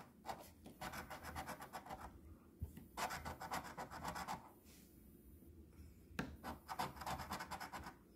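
A coin scraping the coating off a scratch-off lottery ticket in three bursts of rapid back-and-forth strokes, with short pauses between.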